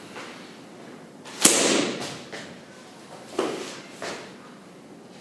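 A single sharp smack about a second and a half in, ringing briefly in a large room, then two softer scuffing rushes: contact noises of a hand-to-hand pistol disarm.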